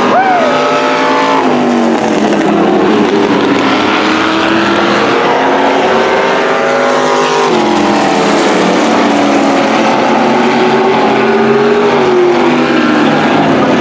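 Engines of several demo race cars running hard around a speedway oval. Their pitch rises and falls as the drivers accelerate and lift through the turns, with a sharp drop about halfway through.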